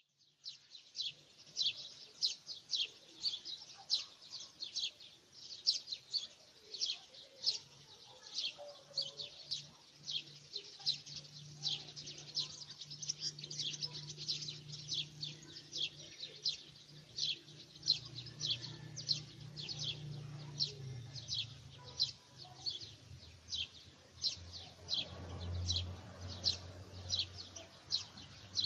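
A bird chirping over and over, short high chirps about two a second, over a faint low steady hum.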